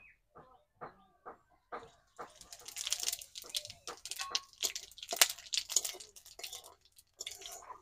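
Bay leaf, cumin seeds and whole garam masala spices crackling in hot oil in an aluminium kadai, with a spatula scraping and stirring the pan. A few scattered pops come first, then dense crackling from about two seconds in.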